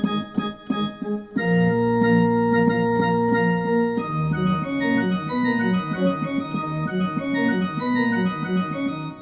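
Electronic keyboard playing an organ voice: a few short, stabbed chords, then a long held chord about a second and a half in, and from about four seconds a busy run of notes over sustained chords.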